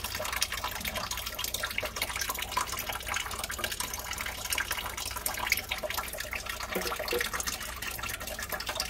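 Water dripping and trickling from a kitchen sink's water supply line into water collected in an aluminium foil pan, a steady rapid patter of drops. It is the house plumbing draining out after the main water valve has been shut off.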